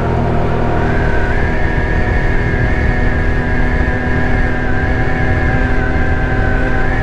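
Ice Bear Hawkeye 150cc GY6 scooter, a single-cylinder four-stroke with belt drive, running under way. Its whine rises about a second in as it pulls away and picks up speed, then holds steady.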